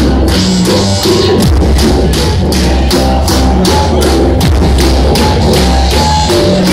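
Live dub band playing loud, with a heavy bass line and a steady drum beat.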